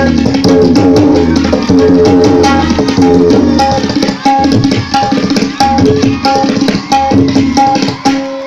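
Tabla played in a fast, driving rhythm that imitates a train running over an iron railway bridge. It is set over a repeating melodic accompaniment with a low drone, and the playing eases off near the end.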